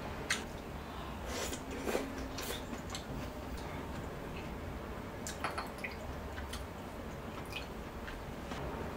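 Light clicks and taps of tableware: metal chopsticks set down on a ceramic bowl and a glass soju bottle handled, a few scattered small knocks over a low steady hum.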